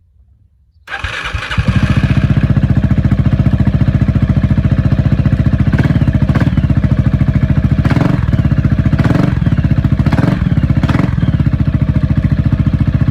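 Gilera Nexus 500 scooter's single-cylinder four-stroke engine starting on the electric starter about a second in, catching at once and settling into a steady, pulsing idle.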